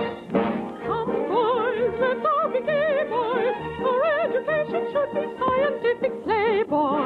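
A soprano singing operetta with a wide, wavering vibrato over an orchestra. The sound is narrow and dull at the top, like an old radio transcription recording.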